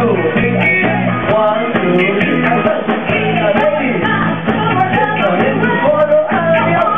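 Loud dance music with a lead singer over a steady bass beat.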